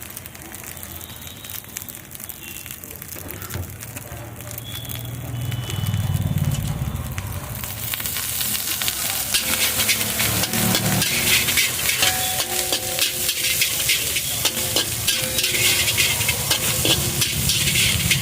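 Food frying in a wok, with the metal ladle scraping and clattering as it stirs. The sizzle turns loud about eight seconds in, over a low rumble.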